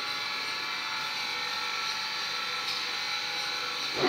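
Steady machine-shop hum with a thin whine, from a running machine motor. Near the end a brief louder sound cuts in.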